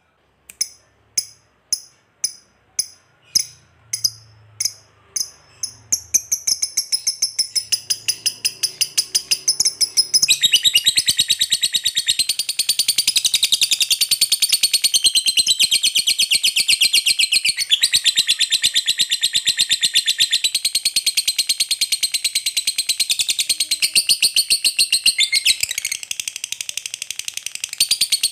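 Lovebird calling: separate sharp high chirps, about three a second, that speed up into a fast run over the first six seconds. About ten seconds in they break into a long, continuous, high chattering trill, the long 'ngekek' that hobbyists prize, which stops abruptly near the end.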